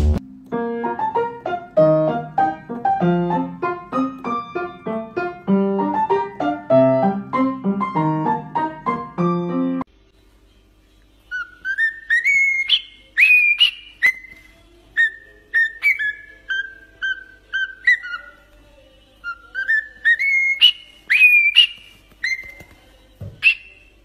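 For the first ten seconds a quick melodic instrumental tune plays. Then a cockatiel whistles a melody: a phrase of notes rising in pitch, followed by several shorter steady notes, with the rising phrase repeated later. A short knock comes near the end.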